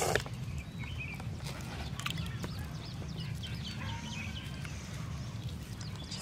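Scattered short, high chirps of small birds over a steady low rumble, with a few sharp clicks.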